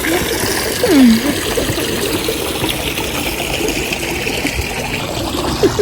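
Steady rushing noise of running water, with a brief faint voice about a second in.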